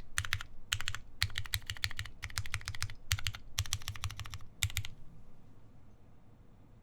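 Typing on a Keycult No. 1 Rev. 2 tenkeyless mechanical keyboard with lubed vintage Cherry MX Black linear switches, a full aluminium plate and GMK keycaps: rapid keystrokes in short bursts, stopping about five seconds in.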